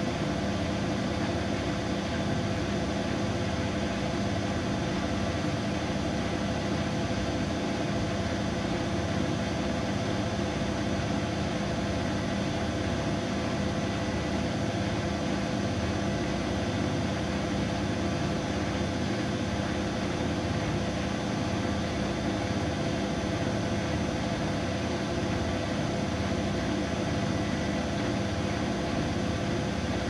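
Siemens Siwamat IQ 716 front-loading washing machine spinning its drum at a steady speed: an even motor hum and drum whir with a few steady tones, not changing in pitch or loudness.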